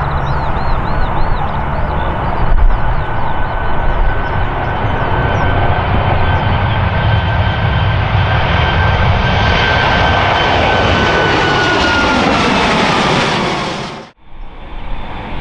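Boeing 737 MAX 8's CFM LEAP-1B turbofans at takeoff power as the jet rolls and climbs out: a dense steady rumble with a high fan tone that falls slightly in pitch near the end. The sound cuts off abruptly about fourteen seconds in, then a quieter rumble follows.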